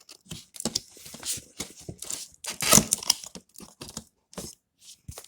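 Packaging torn open by hand: irregular ripping and crinkling, loudest about halfway through.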